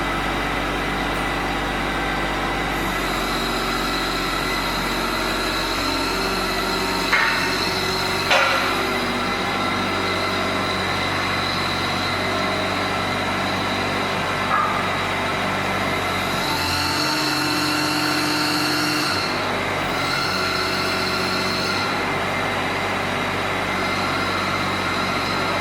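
John Deere 17D mini excavator's diesel engine running steadily while its hydraulics work the tracks in and out. Two sharp clunks come about a second apart in the first third, and the engine and hydraulic tone shifts for a few seconds in the second half.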